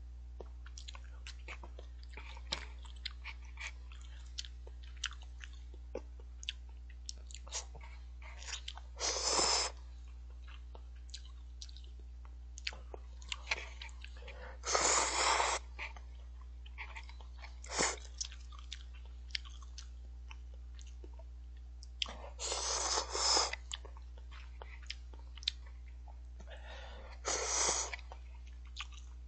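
A person eating instant cup noodles close to the microphone: four loud slurps of noodles, each about a second long, with quiet chewing and small clicks in between.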